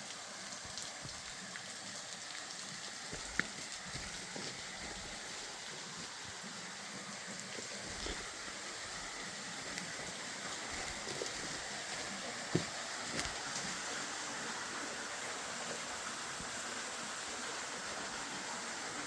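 Steady rushing hiss of flowing creek water, slowly growing a little louder, with a few single sharp clicks.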